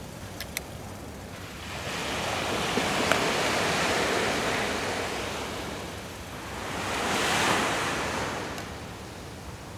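Sea waves washing up on a sandy beach: two surges of surf that rise and fall back, with a few light clicks near the start.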